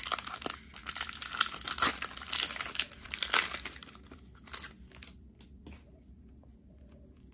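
Foil wrapper of a Pokémon TCG booster pack crinkling as it is torn open, busy for about three and a half seconds, then thinning to a few scattered crinkles.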